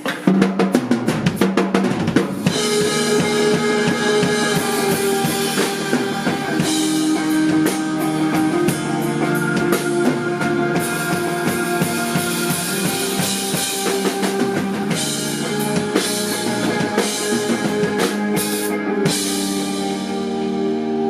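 Live rock band playing: a rapid drum fill opens into the full band, with drum kit, bass and sustained keyboard chords. Near the end the drums ease off, leaving held organ-like chords.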